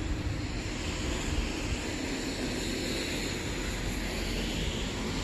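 Steady outdoor rushing noise with a hiss, and wind rumbling on the microphone.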